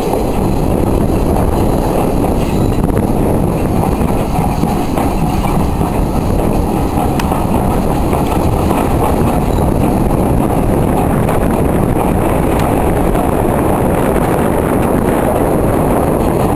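Steady wind noise on the microphone at the open window of a moving railway carriage, over the noise of the train running along the track.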